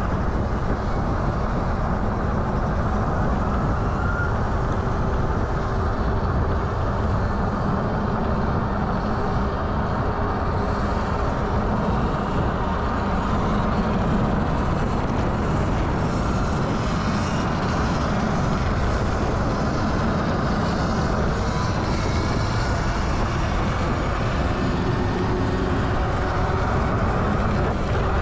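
Steady wind rush and road noise on an action camera's microphone while riding an e-bike along asphalt at speed, a constant low rumble with no breaks.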